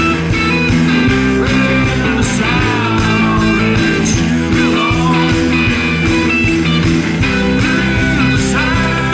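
Instrumental psychedelic rock music with electric guitar over a steady, dense band backing.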